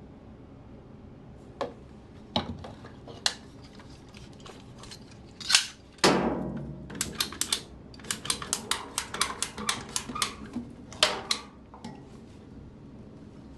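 Sharp clicks and knocks of hard objects being handled, scattered at first, then a quick run of rapid clicks, about six a second, in the second half.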